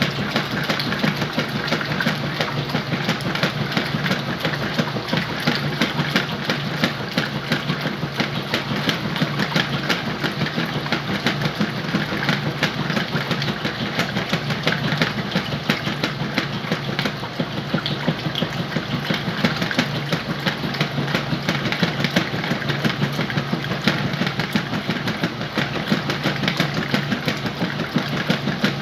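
Whirlpool washing machine running with a load of sheets and pillows: a steady low motor hum under a continuous dense rattle that does not change.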